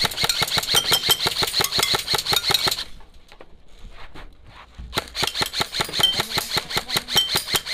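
Airsoft rifle firing on full auto: a rapid burst lasting about three seconds, a pause of about two seconds, then a second rapid burst that keeps going.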